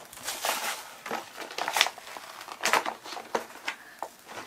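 Plastic wrapping crinkling and crackling in a string of short, irregular rasps as small toy packages are worked open by hand.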